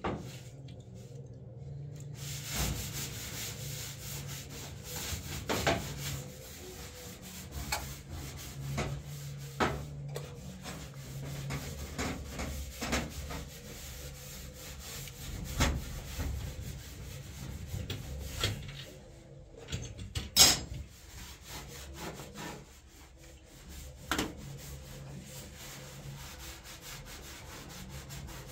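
Hand-held cloth scrubbing a gas cooker's stovetop: a steady rubbing sound, broken every few seconds by sharp knocks, the loudest about twenty seconds in.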